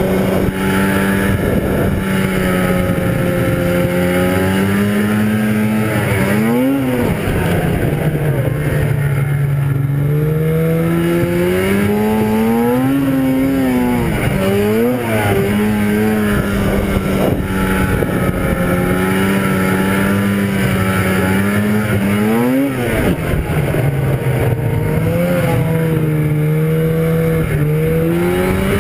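1997 Arctic Cat ZR 440 snowmobile's Suzuki-built two-stroke twin engine running at speed, its pitch holding, sagging and climbing again as the throttle changes. Three times it gives a sharp rev up and straight back down: about a quarter of the way in, halfway, and three-quarters in. Its pitch climbs again near the end.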